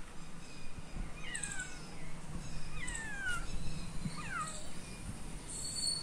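Domestic cat meowing three times, each call falling in pitch.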